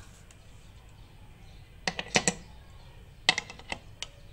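Sharp metal clicks as a pressure regulator weight is fitted onto the vent pipe of a pressure cooker lid. There is a quick cluster of clicks about two seconds in and another near the end.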